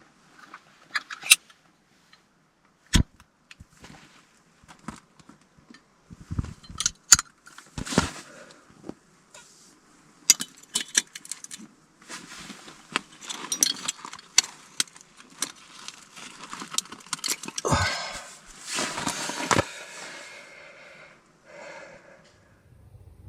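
Irregular clicks, clinks and knocks with bursts of rustling, as of things being handled and set down, with a longer rustling stretch near the end.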